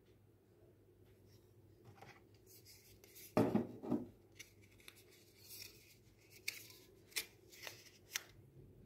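A paper packaging sleeve rustling and scraping as it is slid off a boxed phone accessory, loudest about three and a half seconds in, followed by several short light clicks and taps as the pieces are handled.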